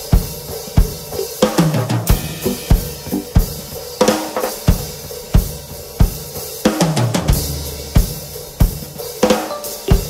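Drum kit played in a live jazz-fusion set: a steady bass-drum pulse about three beats every two seconds with snare and cymbals, and a fill running down the toms about a second and a half in and again near seven seconds.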